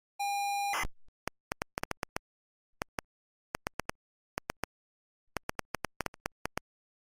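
A short electronic beep lasting about half a second, then runs of sharp keyboard keystroke clicks, a typing sound effect, in irregular bursts that stop about a second before the end.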